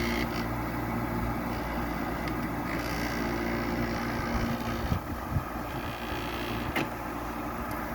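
Frigidaire window air conditioner running: a steady hum of the compressor and fan with a few light knocks in the second half. The unit has a vibration issue.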